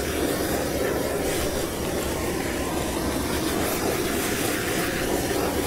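A steady stream of water pouring and splashing onto an upturned plastic tub holding a frozen block of Coca-Cola.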